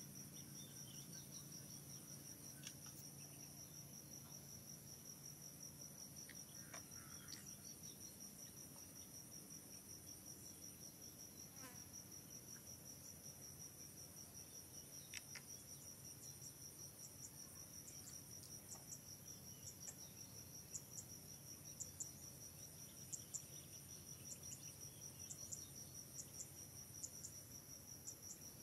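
Faint insects chirring: a steady, high, pulsing trill. In the second half a sharper chirp repeats every half second or so above it.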